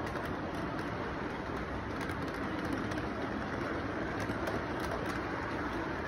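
Model electric freight train rolling steadily along its track, a continuous rumble and whir of the motor and wheels with faint clicks as the cars pass over the rail joints.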